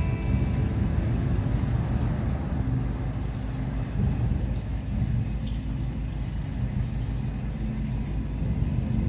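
Low, steady rumble of a pontoon boat under way: the outboard motor running, mixed with wind and water noise.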